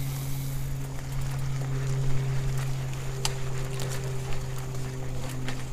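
Mountain bike rolling fast over a dirt and leaf-litter trail, picked up by a camera on the handlebars: tyre noise and a steady low hum, with the bike rattling and sharp clicks and knocks as it runs over bumps and roots.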